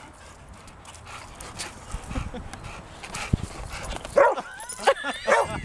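Dog whining and yipping in a quick series of high, sliding calls over the last second and a half, after a couple of dull low thumps.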